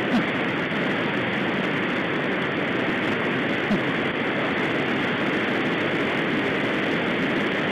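River water rushing over shallow rapids, a steady, even noise.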